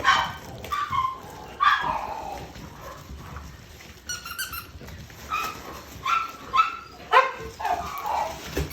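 American Bulldog puppies barking and yelping: a string of short, high calls, some sliding down in pitch.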